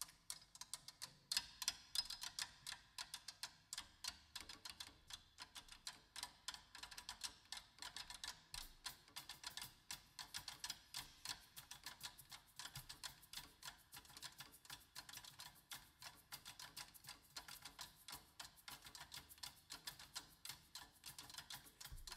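Quiet percussion playing: a fast, even run of sharp clicks and taps with very little bass.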